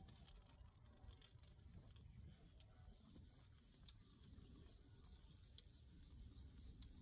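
Near silence: a faint low rumble and a faint high hiss, with a few soft ticks.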